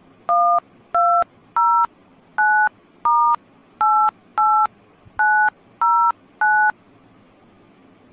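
Ten touch-tone (DTMF) keypad beeps as a phone number is dialed on a mobile phone. Each is a short two-tone beep, coming at a steady pace of a little under two a second.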